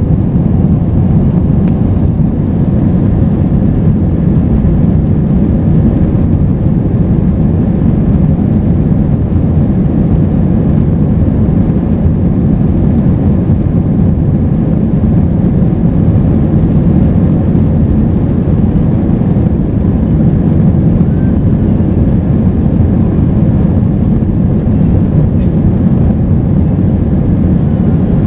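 Steady, loud rumble of an airliner cabin: jet engine and airflow noise heard from a passenger seat, unchanging throughout.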